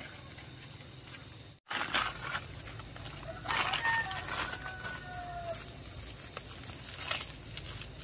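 Chickens calling in short bursts, a few times, over a steady high-pitched tone; the sound cuts out for a moment about one and a half seconds in.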